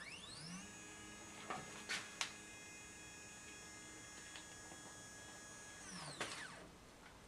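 3018 CNC's X-axis stepper motor driving the carriage along its lead screw in a 50 mm move at 500 mm per minute. Its whine rises in pitch as it speeds up, holds steady for about five seconds, then falls and stops as the carriage slows to a halt. A few light clicks come about two seconds in.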